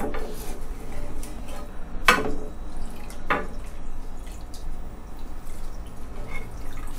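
A perforated metal skimmer sweeps through a pan of hot frying oil, lifting out fried batter crumbs, with the oil sizzling and dripping. Three sharp clinks of the skimmer against the pan come at the start, about two seconds in, and about three seconds in.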